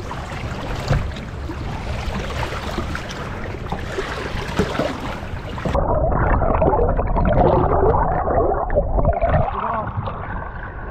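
Wind and choppy river water splashing against the side of a boat. About six seconds in, the sound turns suddenly muffled, with bubbling and sloshing heard from underwater.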